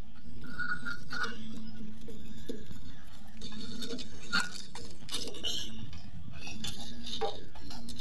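Scattered light clicks and clinks of an excavator's wiring-harness connectors and wires being handled by hand, over a steady low hum.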